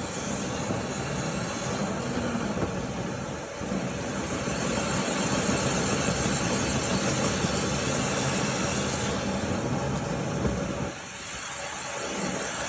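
Steady rush of air with a strong hiss from dryer vent cleaning equipment running, briefly quieter near the end.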